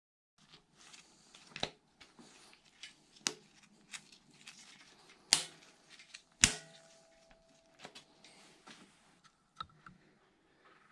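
Steel secondary timing chain and cam sprockets of a Ford DOHC 4.6 V8 clinking and rattling as they are worked on by hand over the tensioner. There are scattered small clicks, a few sharper metal clicks with the loudest about five and six and a half seconds in, and the last one leaves a brief ring.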